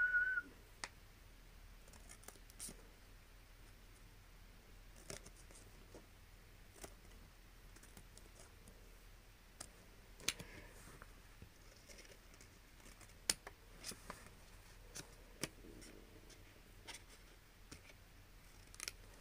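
Scissors cutting paper: sharp, irregular snips, one every second or two, as paper letters are cut out. A brief high squeak right at the start.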